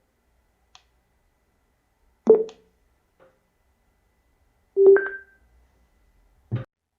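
A JBL GO Bluetooth speaker sounding two short electronic tones about two and a half seconds apart, the second holding a low and a higher pitch together, typical of its power-on and Bluetooth connection prompts. There is a faint click before the first tone and a short knock near the end.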